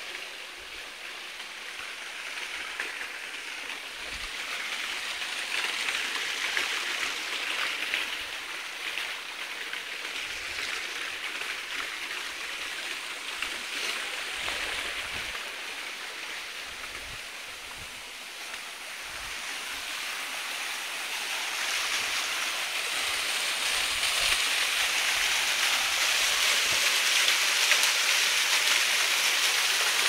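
Rushing water of a waterfall, a steady hiss that dips a little past the middle, then grows louder toward the end.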